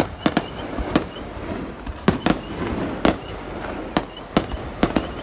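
Aerial fireworks bursting overhead in a quick, irregular string of sharp bangs, about a dozen in five seconds, some in close pairs, over the steady hum of a large stadium crowd.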